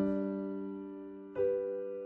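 Background piano music: slow chords, one struck at the start and another about a second and a half in, each left to ring and fade.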